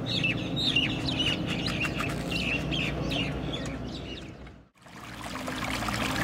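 Birds chirping in quick, repeated short calls, fading out about four and a half seconds in; after a brief silence, water trickling and lapping over rocks fades in near the end.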